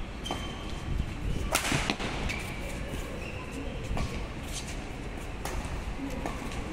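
Badminton doubles rally: rackets striking the shuttlecock in a string of sharp cracks, the hardest about a second and a half in. Short high squeaks from shoes on the court come in between.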